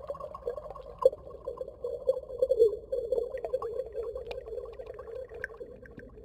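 Water bubbling, a dense run of small bubble pops and gurgles like an underwater bubbles sound effect, easing off slightly near the end.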